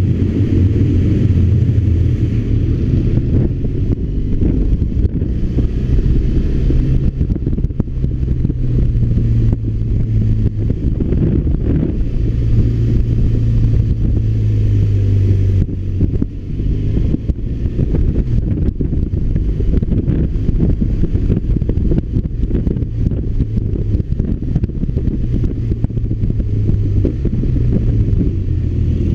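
BMW R1200RT motorcycle's boxer twin engine running on the move, its low note stepping up and down several times, with wind noise on the microphone.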